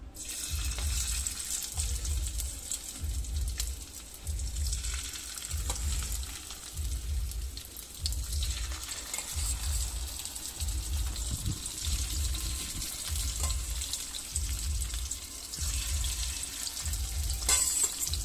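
Hilsa roe pieces sizzling in hot oil in a wok as they are spooned in one by one, with a louder burst of sizzling near the end. A low pulse repeats about once a second underneath.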